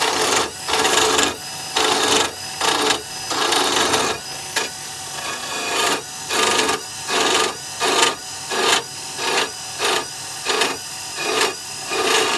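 Pen blank spinning on a Charnwood wood lathe as a hand-held turning tool cuts it. Repeated cutting and scraping bursts come as the tool is worked along the wood, about one to two a second in the second half, over the lathe's steady running hum.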